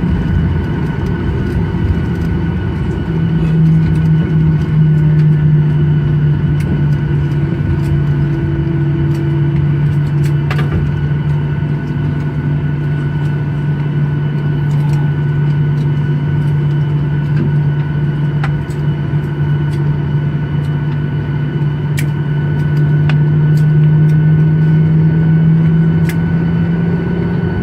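Boeing 737-900ER's CFM56-7 jet engines running, heard inside the cabin as a steady low drone over rumble, with faint ticks here and there.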